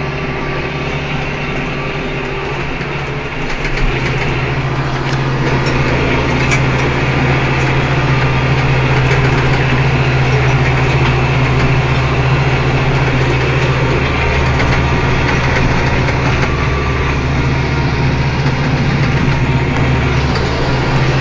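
Kubota M8540 tractor's four-cylinder diesel engine, heard from inside the cab, running steadily with the flail mower working behind. About four seconds in the engine note steps up and grows louder, then holds.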